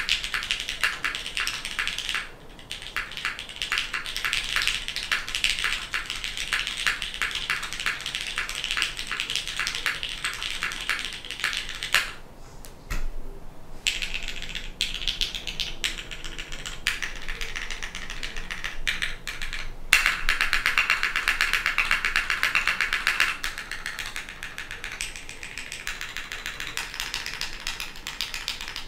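Fast typing on a custom mechanical keyboard with an aluminium plate, a polycarbonate case, lubed SP-Star Meteor White switches and DCS keycaps: a quick run of clacks. There are short pauses about two seconds in and again near the middle, and a denser, faster flurry about two-thirds of the way through.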